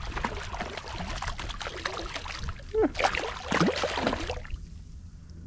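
A hooked redfish thrashing and splashing at the water's surface beside a kayak as it is reeled in. The splashing dies down a little over four seconds in.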